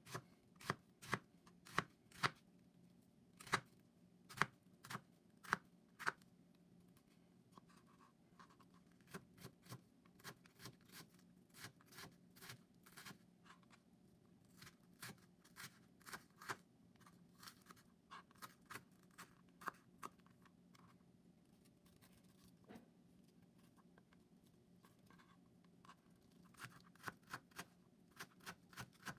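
Kitchen knife chopping an onion finely on a plastic cutting board: irregular sharp taps of the blade on the board, in quick runs with short pauses, over a faint steady hum.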